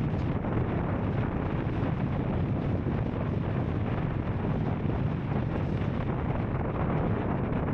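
Royal Enfield Scram 440's single-cylinder engine running steadily under way, with wind rushing over the microphone.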